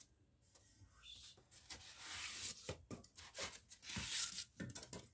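Packing material rustling and scraping as it is worked loose from around paper-wrapped ceramic bonsai pots in a foam-lined wooden crate, in several rough bursts, the loudest about two and four seconds in.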